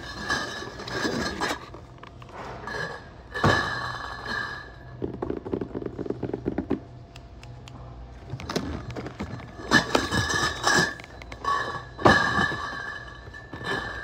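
Cardboard cases of Stella Artois beer bottles being lifted and set down onto a pallet stack, four times, with thuds and short glassy rattles from the bottles inside. The hardest thuds come about three and a half, ten and twelve seconds in, with a softer scraping shuffle in between.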